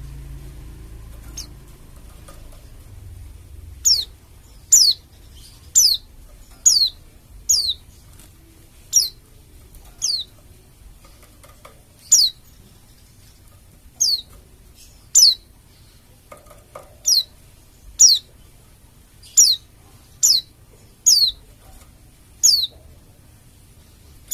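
White-eye (pleci dakun Bali) calling: a long series of short, sharp, high notes, each sliding quickly down in pitch, repeated about once a second after a few quiet seconds at the start.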